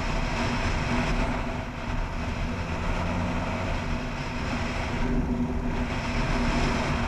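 Motorcycle engine running at a steady cruising note while the bike rides along, with wind and road noise over the microphone.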